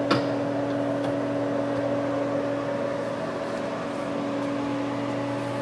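American Turnmaster ATV-618-TR toolroom lathe running steadily on its inverter-driven variable-speed drive at about 470 spindle rpm: an even hum with a few steady tones. A brief click sounds just after the start.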